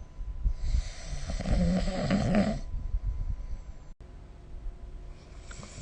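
A person snoring: one loud snore starting about half a second in and lasting about two seconds, followed by quieter breathing noise and a short, weaker snort near the end.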